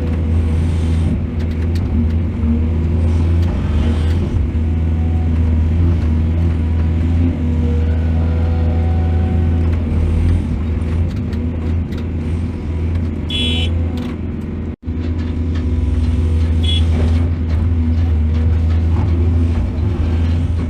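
Heavy diesel engine of a mining excavator running steadily with a deep rumble. A brief high squeal comes about thirteen seconds in, and the sound cuts out for an instant just after.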